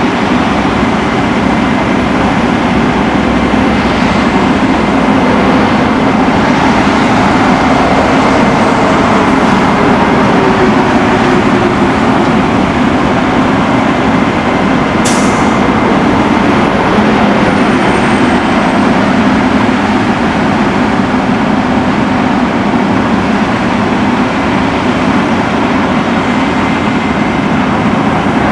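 Cat C13 inline-six diesel of a bucket truck running steadily, driving the hydraulic system while the Altec boom extends and repositions. A short sharp click comes about halfway through.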